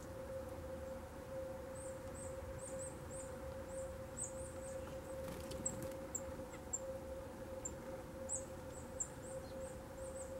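Small songbirds giving thin, high-pitched call notes, short chips repeated in loose runs from about two seconds in. Underneath runs a steady faint hum and a low outdoor rumble.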